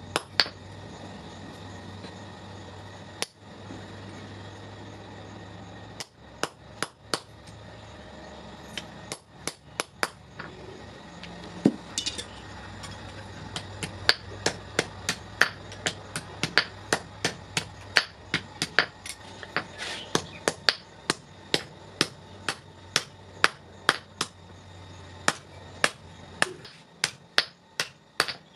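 Blacksmith's hand hammer striking a small hot-steel knife blank held in tongs on an anvil, metal on metal. A few scattered blows come at first, then steady strikes of about two a second from about halfway, with a low hum underneath that fades near the end.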